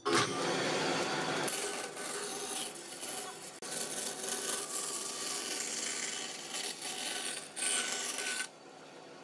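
Band saw blade cutting through a glued-up panel of wood strips, a dense rasping rush that drops away sharply near the end.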